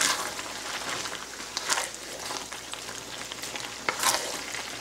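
Boiled fettuccine being tossed and stirred with a wooden spatula in a pan of hot tomato-based sauce, the sauce sizzling steadily. Three louder strokes of the spatula come at the start, a little under two seconds in, and near the end.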